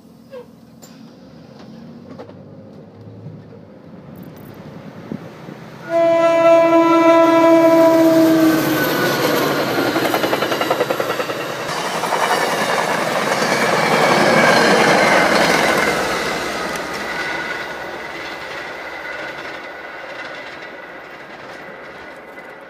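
A train horn sounds once, a single steady blast of about two and a half seconds. It is followed by a train passing with the rumble and clatter of its wheels on the rails, building to a peak and then fading away.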